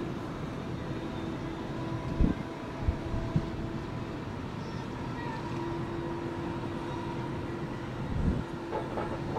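A train running past with a steady rumble and a held humming tone, with a few knocks from the wheels about two, three and eight seconds in.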